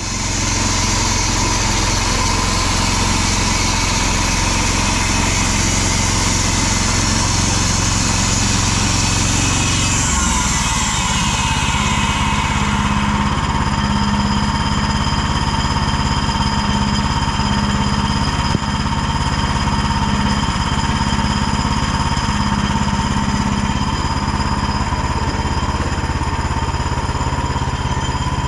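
Woodland Mills HM126 band sawmill running on its Predator 20 hp gas engine while cutting a log, a loud, steady engine note with the blade running. About ten seconds in the engine note changes and then holds steady again.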